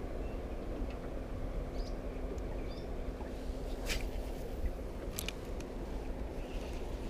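Open-air sound from a small boat on the water: a steady low rumble with a constant low hum under it. A few sharp clicks come about four and five seconds in, as a baitcasting rod is cast and its reel handled.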